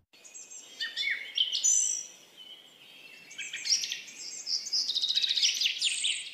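Small songbirds chirping and twittering in two bouts, the second turning into a fast run of chirps.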